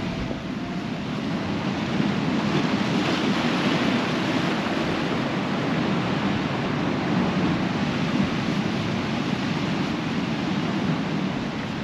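Rough sea swell surging and breaking on rocks, a steady wash of surf that grows louder about two seconds in, with some wind on the microphone.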